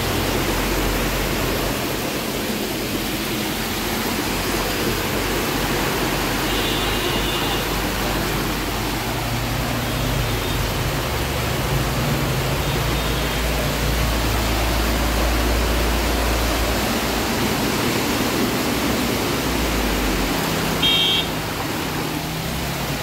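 Floodwater rushing across a waterlogged street: a steady, loud wash of water noise, with a low rumble of vehicles driving through the water in the middle.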